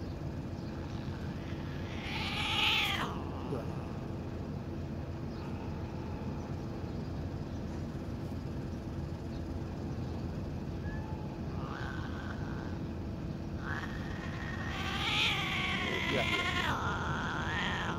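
Injured domestic cat meowing while its wound is wiped with a tissue: one meow about two seconds in, a brief call near twelve seconds, then a long wavering yowl that runs into a second call near the end, over a steady low hum.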